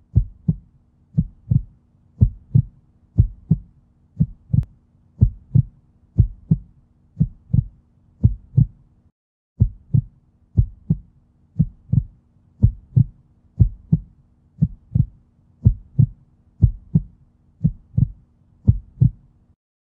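Heartbeat sound effect laid over the footage: a low double thump about once a second, over a faint steady hum. It breaks off briefly about nine seconds in and stops just before the end.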